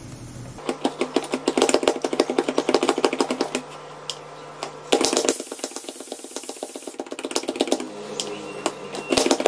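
Hand-pressed plunger vegetable chopper chopping red onion: fast clattering clicks of the spinning blades as it is pumped, in two spells with a short hiss between them.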